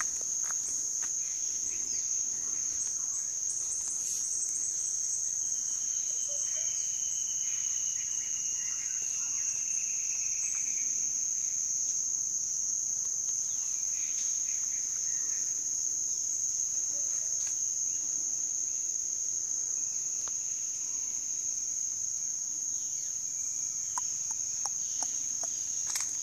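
Rainforest insects droning on one steady high-pitched note without a break. A long, slowly falling whistle sounds over it about six seconds in.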